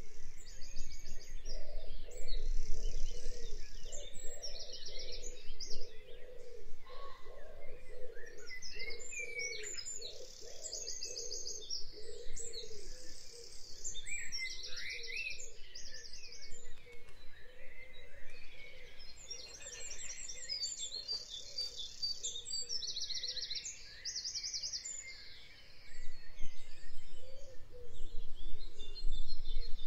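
Birds chirping, with runs of rapid high trilled notes that come and go every few seconds over softer, lower twittering.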